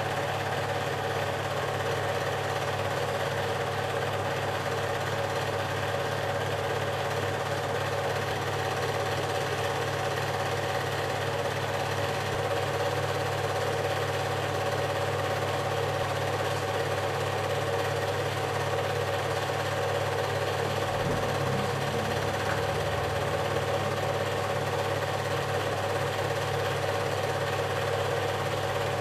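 Super 8 film projector running: a steady mechanical whir and hum that does not change.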